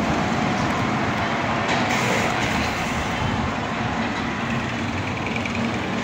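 Roller coaster train rolling along its steel track, a steady rumbling noise.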